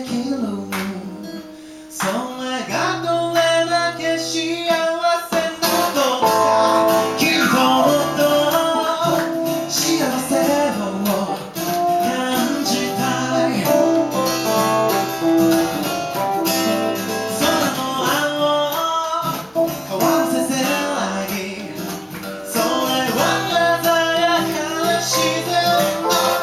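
Acoustic guitar played live, plucked and strummed, with a singing voice over it.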